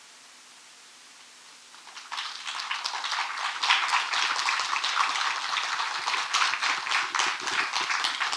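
A short quiet, then about two seconds in an audience bursts into applause that holds steady.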